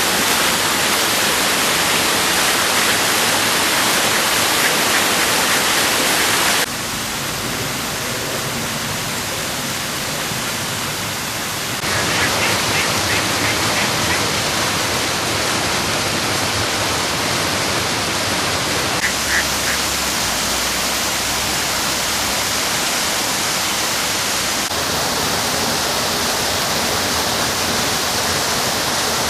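Running water, a continuous hiss-like flow that changes abruptly in loudness and tone several times.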